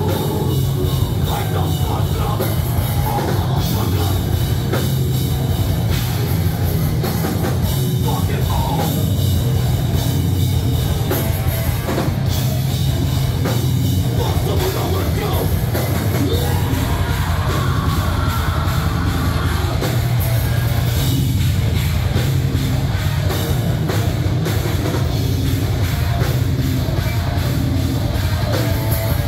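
Live heavy rock band playing loud and without a break: electric guitars, bass and a full drum kit.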